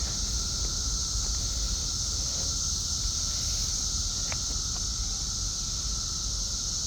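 A dense chorus of periodical cicadas making a steady, high-pitched drone, over a low rumble.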